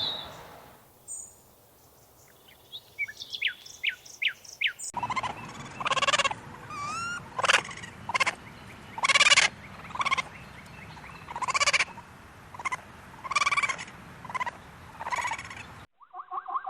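Poultry calling: faint bird chirps, then from about five seconds in a string of loud calls roughly once a second.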